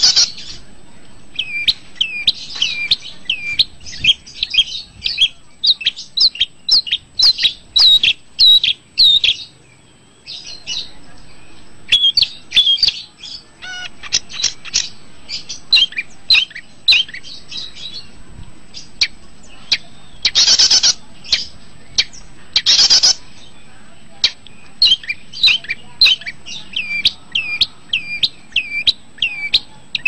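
Long-tailed shrike (pentet/cendet) singing: rapid runs of short, sweeping whistled notes in phrases with brief pauses. Two harsh rasping calls come about two-thirds of the way through.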